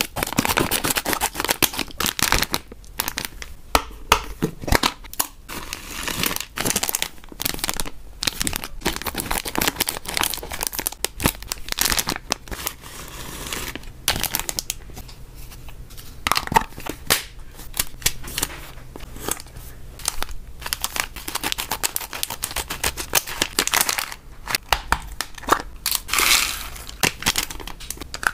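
Plastic snack packaging crinkling and tearing, with dry hamster treats being handled and tipped into clear plastic containers: a dense run of sharp crackles and clicks.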